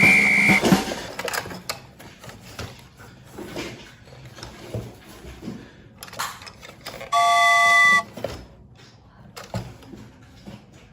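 Small clicks and knocks of toys being handled, with two short electronic beeps: a single high tone right at the start, and a chord of several steady pitches lasting under a second about seven seconds in.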